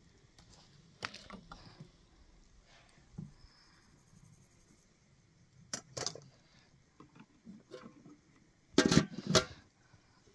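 Metal cookware clinking and scraping: a steel skimmer ladle knocking against a cooking pot and basin, then two louder clanks near the end as a metal lid is set on the pot.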